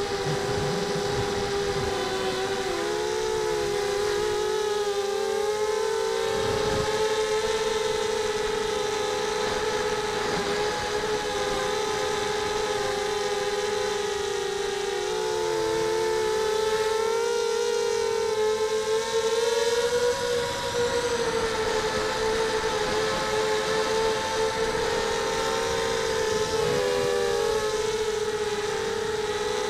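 Mini quadcopter's Sunnysky 2300 kV brushless motors and propellers buzzing in flight, heard from a camera mounted on the frame. The pitch keeps wavering up and down as the throttle changes through fast, low turns.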